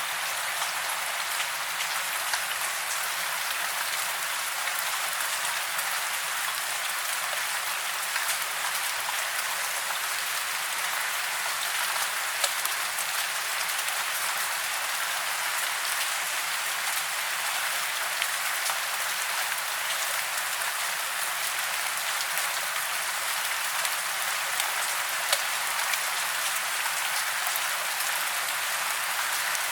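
Steady rain hiss, mostly high-pitched with little bass, with many small drop ticks scattered through it.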